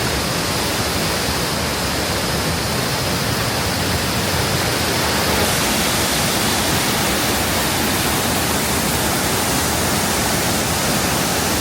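Waterfall, water crashing down in a loud, steady rush that does not change.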